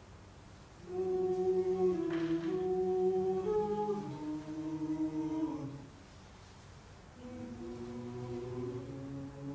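Wordless humming voices in long held notes that step and slide from pitch to pitch, stopping twice for about a second.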